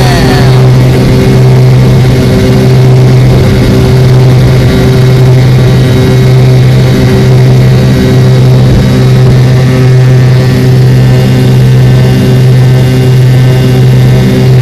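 Airliner engines heard from inside the passenger cabin: a loud, steady hum with a few fixed tones and a slow pulsing beat about once a second.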